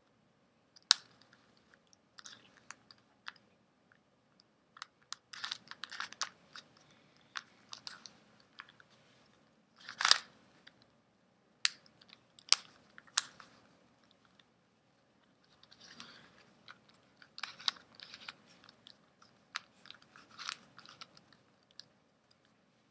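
Plastic pieces of a Mini Rhombiminx twisty puzzle clicking and clacking as its faces are turned by hand. The turns come in irregular runs, with a few sharper clacks and a short pause a little past the middle.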